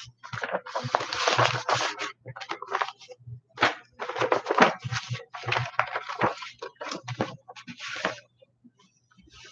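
Sheets of paper rustling and shuffling in irregular bursts as a stack of documents is leafed through by hand.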